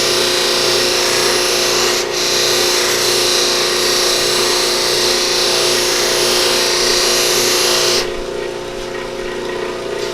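Powered buffing wheel running with a steady hum while deer antler is pressed against the wheel charged with blue polishing compound, making a loud rushing hiss. The hiss dips briefly about two seconds in and stops a couple of seconds before the end, leaving the buffer motor running on its own.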